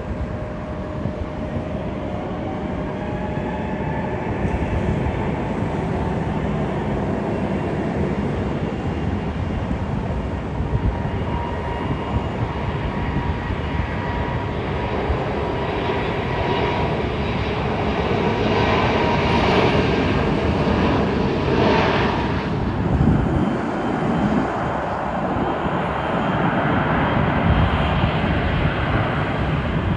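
Jet engines of an Alaska Airlines Embraer E175 coming in to land: a steady rumble with a faint whine that grows gradually louder as the jet arrives on the runway.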